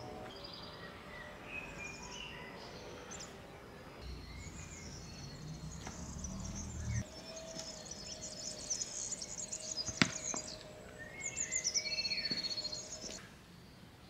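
Songbirds chirping and trilling around, several calls overlapping. About ten seconds in comes a single sharp knock, a thread cone set down on the stone paving.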